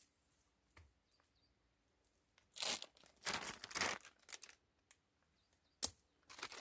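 Clear plastic film wrapped on a tree branch crinkling in several short rustling bursts in the middle, then a single sharp click near the end.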